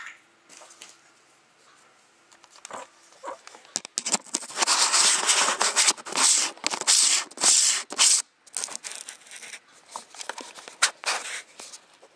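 Plastic packaging being handled, crinkled and torn open while unwrapping a lens, with scattered clicks. The rustling is loudest and densest for about four seconds in the middle.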